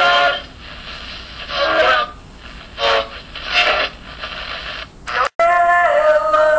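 A radio being tuned across the dial: short snatches of sound from stations come and go about once a second. It cuts off suddenly about five seconds in, and singing starts right after.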